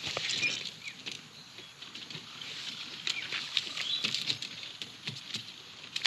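Animated-film sound-effects track: soft pattering and scattered light clicks and rustles over a faint steady hiss.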